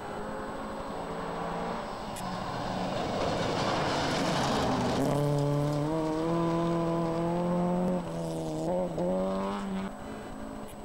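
Rally car engine running hard on a gravel stage, getting louder with a rush of tyre and gravel noise about four seconds in as it comes through. It then holds a steady high note, lets off about eight seconds in, dips and rises in pitch twice, and fades away.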